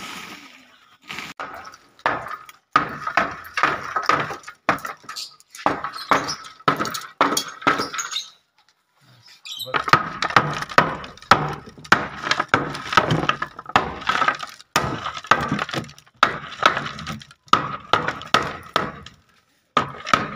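Repeated hammer blows on wooden roof planks and nails of an aviary, in quick runs of sharp, briefly ringing strikes, with a longer pause about eight seconds in.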